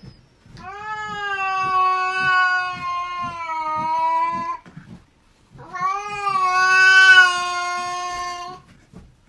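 A domestic cat yowling: two long, drawn-out calls, each holding a fairly steady pitch, with a short break between them.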